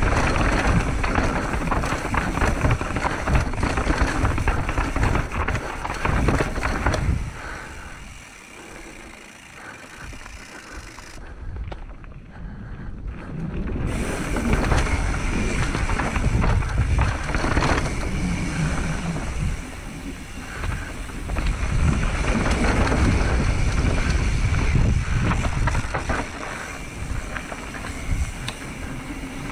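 Mountain bike riding a dirt trail: tyre and frame rattle over the ground, with wind on the microphone. The noise dies down for several seconds about a quarter of the way in, then picks up again.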